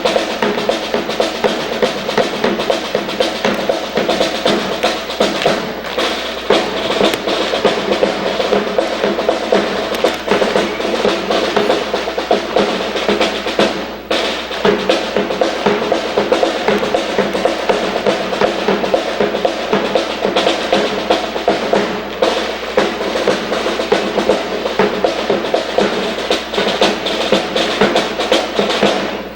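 Drum-led music playing steadily at a high level, with many sharp clicks running through it; it stops abruptly at the very end.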